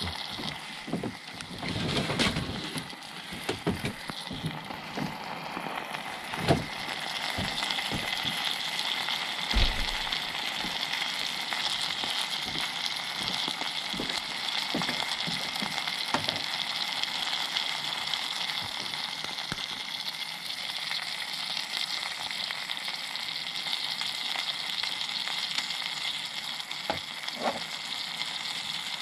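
Ham and eggs frying in a stainless steel camp pot on a compact gas burner: a steady sizzling hiss, with a few short sharp clicks in the first ten seconds and again near the end.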